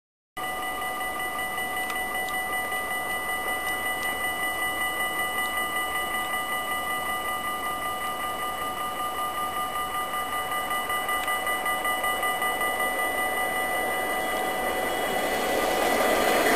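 An approaching Dutch NS intercity electric train: several steady ringing tones over a hiss that slowly grows louder, then the rushing rumble of the train passing at speed near the end.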